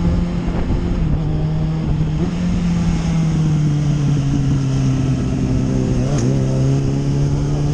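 Motorcycle engine running at a steady cruising pace as the bike rides along. There is a short click and a slight dip in the engine note about six seconds in.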